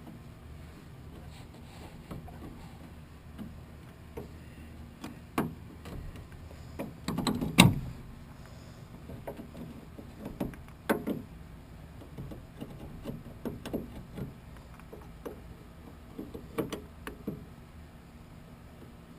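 Scattered knocks, taps and clicks of hands working sound-deadening mat onto a car door's sheet metal, with a louder cluster of knocks about halfway through.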